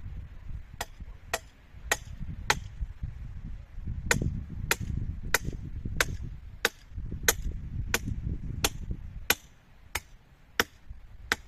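Sharp, evenly spaced knocks, about one and a half a second with a short pause near the start, like a tool striking repeatedly. Wind buffets the microphone with a low rumble underneath.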